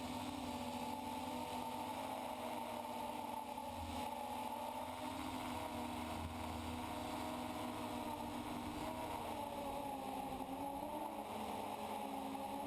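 FPV quadcopter's electric motors and propellers whirring steadily, picked up by the onboard GoPro. The pitch wavers a little near the end as the throttle shifts.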